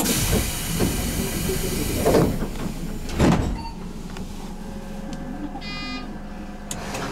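The sliding doors of a Tobu 10030 series commuter train closing: a sudden high hiss, then several heavy thuds over the next few seconds. A short electronic beep sounds about six seconds in.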